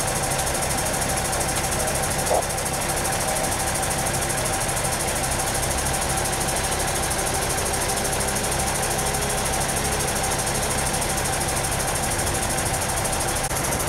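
An engine idling steadily, a constant drone with a low pulsing hum. A brief sharp sound cuts in about two and a half seconds in.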